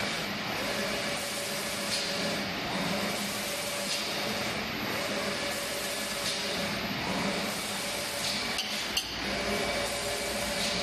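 Automatic paint spraying machine running: a steady machine hum under the hiss of its spray guns. The hiss fades and returns about every two seconds, with a faint click each time, as the spray head sweeps back and forth over the cabinet door. A single sharp click comes near the end.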